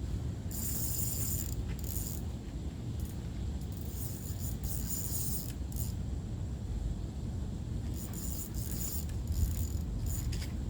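Spinning fishing reel ratcheting in short spells, about eight or nine times, while a carp is being played on the line.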